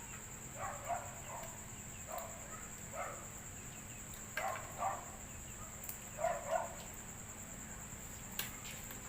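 Crickets trilling in a steady high tone. Over it come about half a dozen short, sharper sounds every second or two, some in close pairs.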